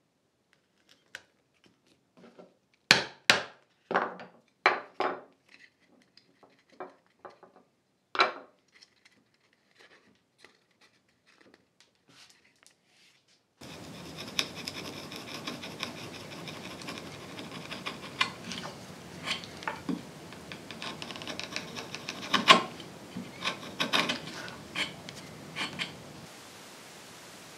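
Hand tools working hardwood dovetail joints: short, sharp scratching strokes of a marking knife scoring the wood. About halfway through, a steady room hiss comes in, with a chisel paring and clicking at the pins.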